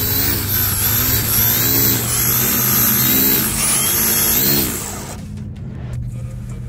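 Electric motor of an RC drag car revving up and back down about four times in quick succession, a high whine rising and falling with each rev, while the car is held back by its wheelie bar. The revving stops about five seconds in.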